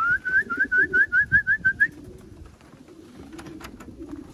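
Racing pigeons cooing at the loft, with a quick run of about ten short rising chirps over the first two seconds, then quieter with a few faint clicks.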